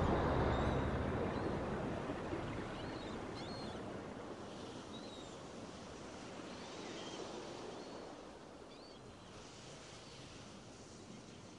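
A steady noise wash, like surf or wind, fading out slowly, with a few faint short high chirps scattered through it.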